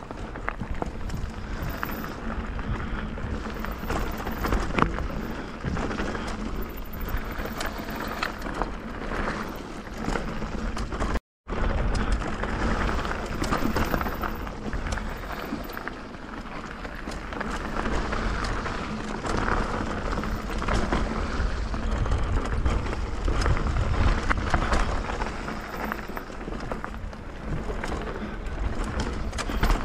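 Mountain bike running down a dirt and gravel trail: wind buffeting the camera microphone and tyres rolling on loose ground, with frequent clicks and rattles from the bike and stones over bumps. The sound cuts out for a moment about a third of the way in.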